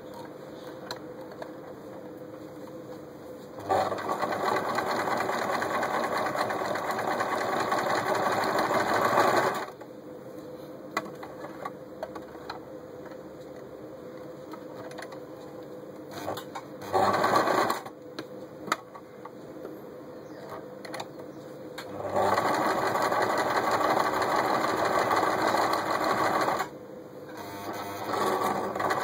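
Janome Super Automatic 348 electric sewing machine stitching through fabric in runs: about six seconds, a brief one-second burst, then about four and a half seconds, starting up again near the end. Small clicks sound in the quieter stretches between runs. The machine runs with a low noise level.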